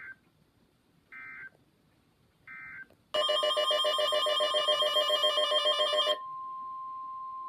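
Emergency Alert System data tones: three short buzzy bursts, the end-of-message code closing the previous alert. Then a loud, rapidly pulsing, ringing alert sound for about three seconds, cut off sharply into a steady single-pitch alarm tone, the NOAA Weather Radio 1050 Hz warning alarm that precedes the next warning.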